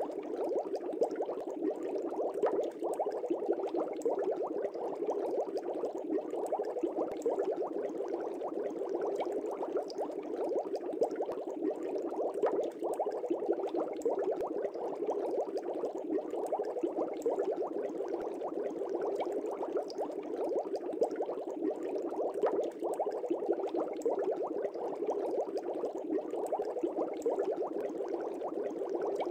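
Steady, unbroken bubbling water, like an aquarium's bubbler, with a fine crackling texture.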